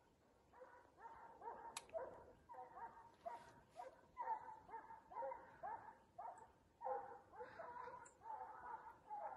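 Hunting hounds barking faintly and steadily, about two to three barks a second, as they work game in a wild boar drive.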